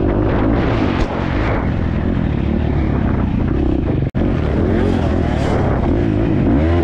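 Off-road motorcycle engine revving up and down over and over as the bike is ridden hard, under a steady rush of wind and terrain noise. The sound cuts out for an instant about four seconds in.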